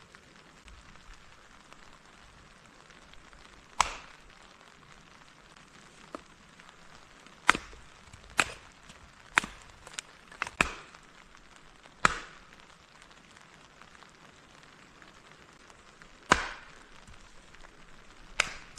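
Wood being chopped or split: about ten sharp, separate strikes at irregular intervals, several close together in the middle, over a faint steady hiss.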